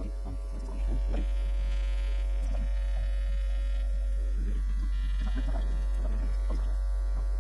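Steady low electrical mains hum, which steps up in loudness about a second in and then holds level.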